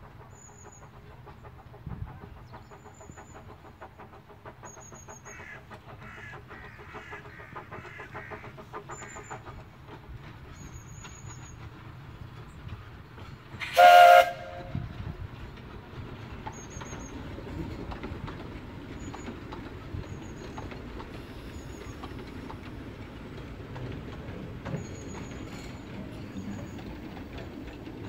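Kerr Stuart Wren class narrow-gauge steam locomotive heard from its footplate, running with a steady rumble and rail clatter. About halfway through it gives one short, loud blast on its steam whistle.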